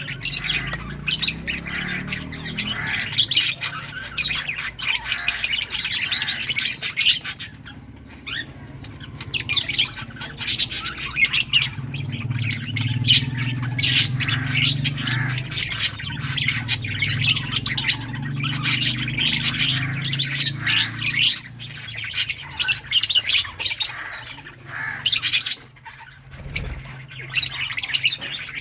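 A group of lovebirds chirping and squawking together in rapid, shrill, overlapping calls, with brief lulls about eight seconds in and near the end.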